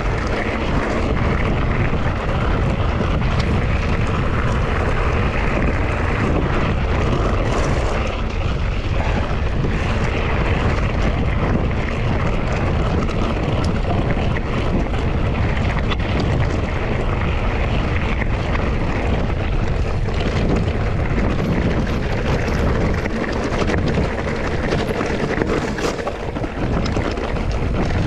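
Steady rush of wind on the microphone with mountain-bike tyre rumble over a trail, and a few brief knocks.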